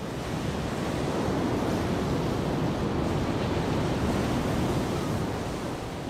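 Heavy ocean surf breaking against rocks, a steady rush of churning water.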